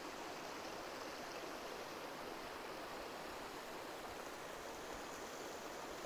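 Waterfall: a steady rush of falling water, an even hiss that holds without a break.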